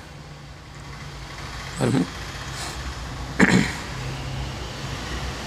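A steady low mechanical hum, with two brief voice sounds about two seconds and three and a half seconds in.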